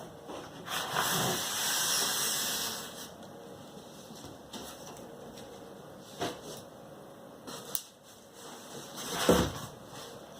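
Handling noises from unboxing a PC case: about two seconds of sliding and rustling of packaging near the start, then a few scattered knocks and a heavier thump near the end.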